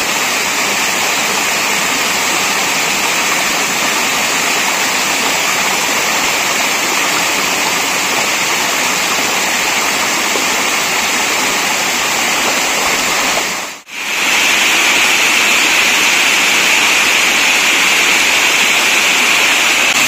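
Waterfall close by: a loud, steady rush of falling water. It drops out for an instant about fourteen seconds in, then comes back a little louder and brighter.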